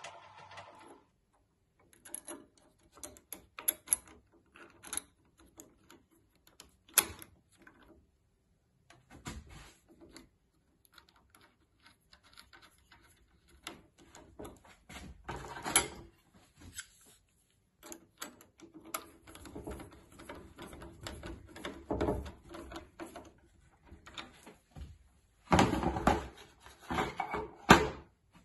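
Hands fitting a small metal clamp, bolt and nut onto the wooden upright of a kicksled: irregular small clicks, taps and rubbing of metal on wood, with a louder cluster of knocks near the end.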